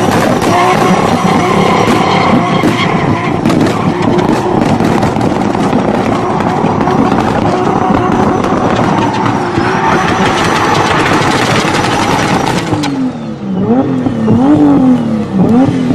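Turbocharged drift car's engine held at high revs while its rear tyres spin and squeal in a smoky slide. About 13 seconds in the revs drop, then the engine is blipped up and down several times in quick succession while flames shoot from the exhaust.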